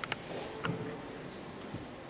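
Quiet concert-hall ambience with a few faint clicks and knocks from the seated band handling instruments and stands while waiting to play.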